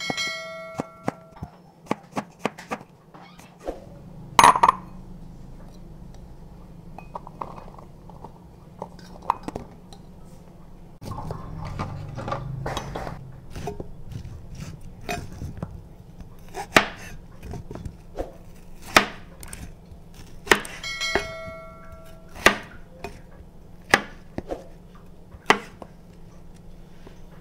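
Chef's knife chopping on a plastic cutting mat: a quick run of slicing strokes through mushrooms, then single firm knife strikes on the board every second or two as baby corn is cut. A brief ringing chime sounds near the start and again a little past two-thirds through.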